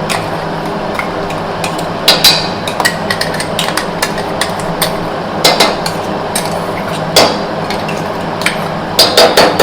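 Metal spoon knocking and scraping against a pan as ground spice is tapped in and stirred into frying chicken: irregular sharp knocks over a steady hiss from the pan.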